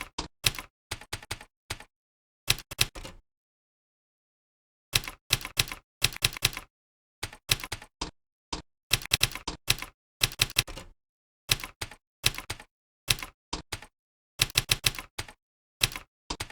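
Computer keyboard being typed on: runs of quick key clicks in bursts, broken by short pauses and one longer pause about three seconds in.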